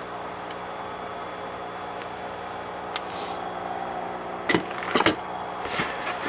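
Unpacking noise: a single light click about three seconds in, then hands knocking and rubbing against styrofoam packing in a cardboard box, with a couple of sharper knocks. A steady low hum runs underneath.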